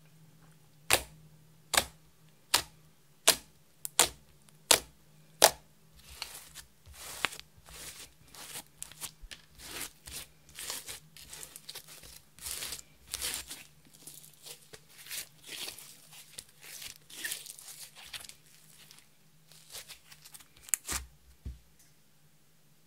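Glittery slime, clear slime tinted with makeup and glitter, being handled by hand: first seven sharp pops about three-quarters of a second apart, then a long run of quick sticky crackles as it is stretched and folded.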